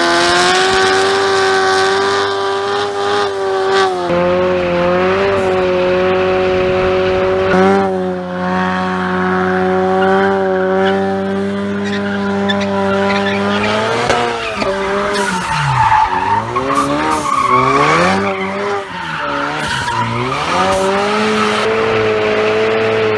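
Ford Mustang engine held at high revs while the rear tires spin and squeal through a burnout and donuts. The revs hold steady for most of the first half, then swing up and down several times.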